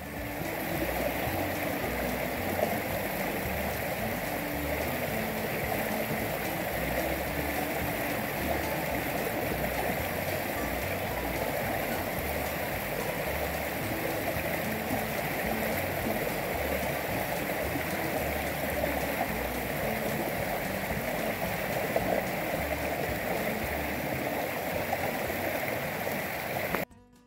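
Creek water rushing and splashing steadily over rocks, cutting off suddenly near the end.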